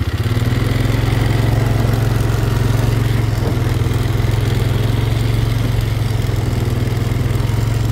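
Four-wheeler (ATV) engine running under throttle as it is driven across grass. Its note rises a little and gets louder just after the start, then holds steady.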